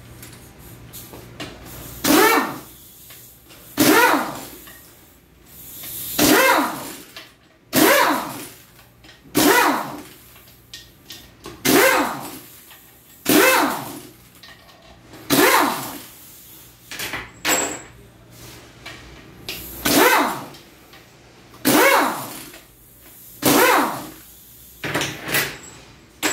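An animal calling over and over, a dozen or more times about every one and a half to two seconds, each call loud and sliding down in pitch.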